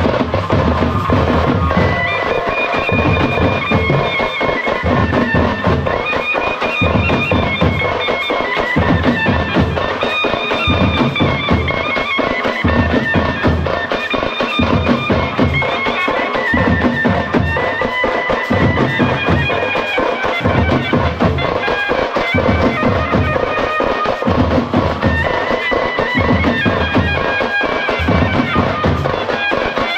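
Loud double-reed pipe playing a melody over a steady beat of hand drums, in the style of South Indian festival band music.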